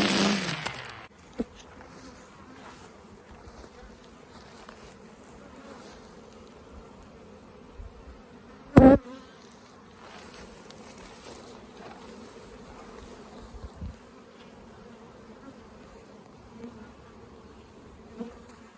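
A Kobalt 24-volt battery string trimmer running, which cuts off about a second in. After that, honeybees buzz steadily around their hives, fired up by the trimming, with one brief loud buzz about nine seconds in.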